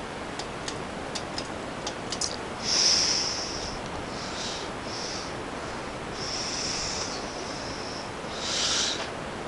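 Steady rush of moving air from a running ceiling fan, with a few light clicks in the first two seconds. Over it come several breathy sniffs and exhales close to the microphone, the loudest about three seconds in and again near the end.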